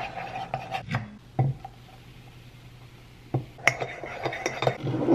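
Metal teaspoon stirring coffee in a ceramic mug, clinking against the mug's sides, to melt a hot chocolate bomb into the drink. Clinks near the start, a quieter lull in the middle, then a quicker run of clinks in the second half.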